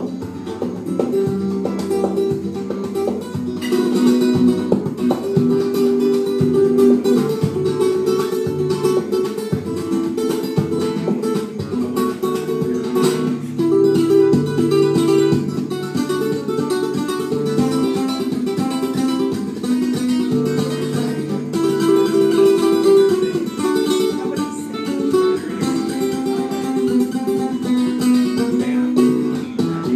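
Solo acoustic guitar played live, a continuous run of picked melody notes over bass notes.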